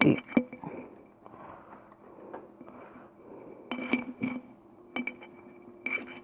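Light clicks and clinks of small metal parts being handled while a room heater's fuse is fitted back into place, in scattered taps with a cluster about four seconds in and another near the end.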